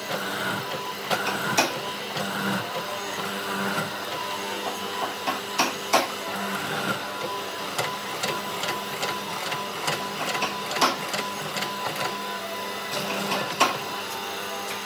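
Hollow-chisel mortiser running with a steady motor hum as its square chisel and auger bore into a thick beam of weathered boat timber, with several sharp knocks at uneven intervals as the chisel plunges and chips break loose.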